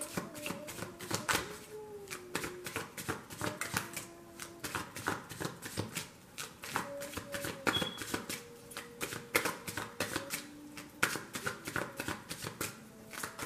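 A deck of tarot cards being shuffled by hand: a continuous, irregular run of quick papery clicks and riffles.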